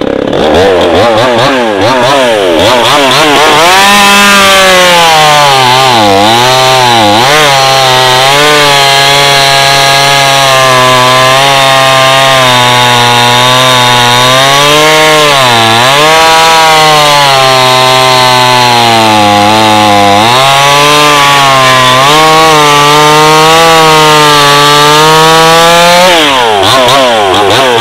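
A 52cc two-stroke '5200' chainsaw revved up to full throttle and cutting through a log. Its engine pitch dips several times as the chain bites in under load, then recovers each time.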